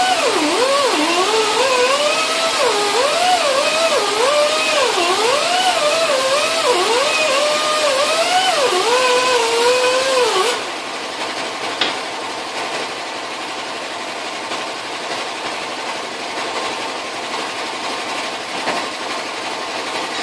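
High-speed rotary tool whining as it dresses dings on steel vise parts, its pitch dipping again and again as it bites in under load. It cuts off suddenly about ten seconds in, leaving a quieter steady hum and a single click.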